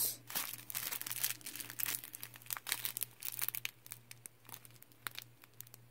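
Small clear plastic bags of diamond painting drills crinkling as they are handled between the fingers, in many small irregular crackles that thin out near the end.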